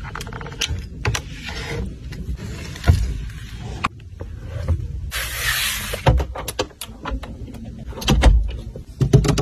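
Clicks and knocks from a Mercedes S-Class's rear-cabin fittings being worked by hand, including a fold-out tray table being opened, with a short burst of hiss about halfway through and a low hum throughout.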